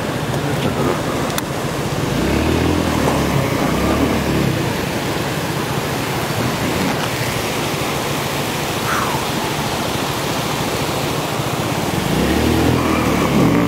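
Steady rush of wind across the microphone from an open vehicle on the move, with a low engine note swelling up a couple of seconds in and again near the end.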